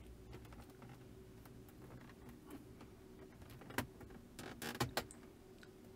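Plastic clips of a wood-grain dashboard trim strip snapping into place as it is pressed home by hand: a few sharp clicks a little before the four-second mark and a quick cluster just after, over a faint low hum.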